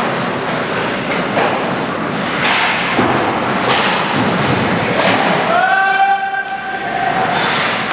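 Ice hockey play: skates scraping on the ice with sharp knocks of sticks and puck every second or so. Near the end a held, pitched voice call lasts about a second and a half.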